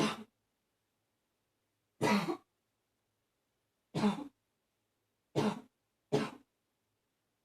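A woman's barking coughs, each a single short hack. One comes right at the start, then one about every two seconds, and the last two come close together.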